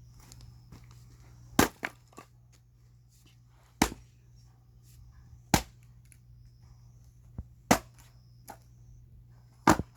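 Axe splitting firewood: five sharp cracking blows about two seconds apart, the first and last each followed by a quick second knock.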